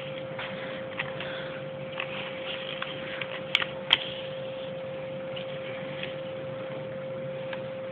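A sheet of paper being pressed and folded by hand, with light scattered rustles and two sharp clicks about three and a half and four seconds in, over a steady faint electrical hum.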